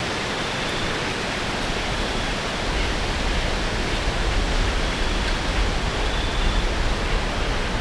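Steady rushing noise with a low, uneven rumble that swells through the middle, typical of wind buffeting the microphone, with a few faint, short, high tones.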